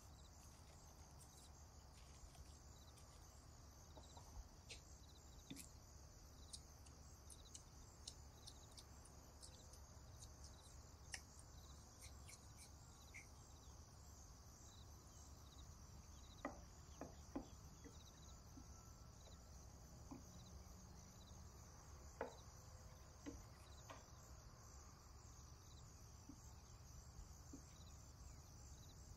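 Near silence: a faint steady high hiss over a low hum, with a few faint soft taps, the clearest a little past halfway, from hands working rice-cake dough and plastic wrap on a wooden board.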